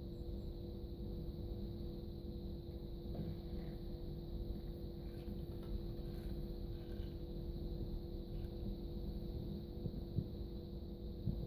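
A lathe running steadily during boring, a constant hum made of several steady tones over a low rumble, with a few faint ticks and two slightly louder knocks near the end.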